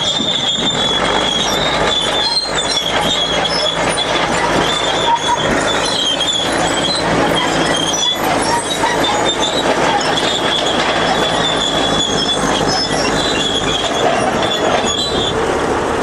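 Crawler tractor running steadily under load while pulling a plough, with a high metallic squeal from its tracks coming and going.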